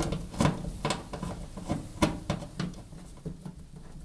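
Screwdriver undoing the screws of a washing machine's rear access panel, with a run of irregular small clicks and knocks.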